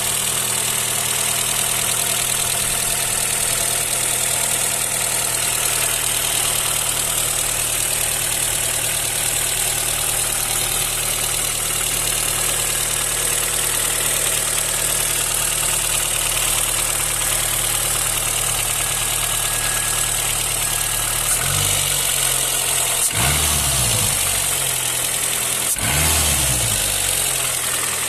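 Renault Clio II petrol engine idling steadily, then briefly revved three times in the last several seconds. The owner presents this as the engine's 'choking', the same whether it is hot or cold.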